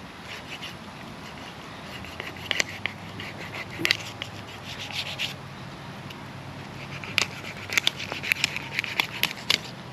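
Knife cutting the belly meat off a flathead catfish, sawing through the flesh and rib bones in two spells of rasping, scraping strokes with sharp clicks.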